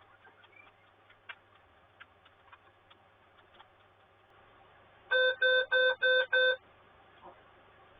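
Dell Inspiron Mini 11z netbook sounding its startup beep code: five short, even beeps about a third of a second apart, after a few faint clicks of handling. The beeps are the laptop's warning of a hardware fault found at power-on, and they persist with a known-working DDR2 RAM module fitted.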